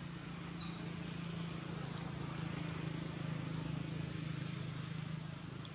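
A steady low engine hum, like a passing motor vehicle, growing louder towards the middle and easing near the end, over a constant background hiss.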